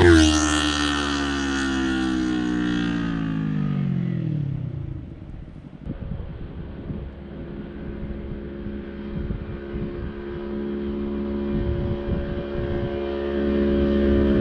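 Yamaha YZF-R3's parallel-twin engine through an Arrow Pro-Race full exhaust system, passing by loudest right at the start, then falling in pitch and fading as it moves away over about five seconds. After a quieter stretch its steady note grows louder again near the end as it comes back.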